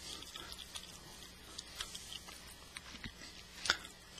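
Faint handling noise from a laptop webcam being moved around: scattered light clicks and rustles, with one sharper click a little before the end.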